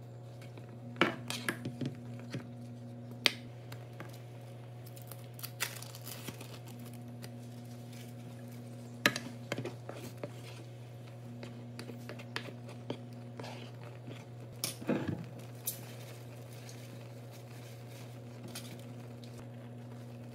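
Cooking utensils knocking and scraping against a nonstick pan while a simmering sauce is stirred, with sharp clinks every few seconds. A steady low hum runs underneath.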